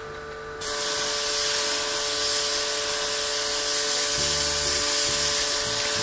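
Water jet sprayed onto the cooling coil of a wall-mounted indoor air conditioner to clean it, a steady hiss that starts suddenly about half a second in.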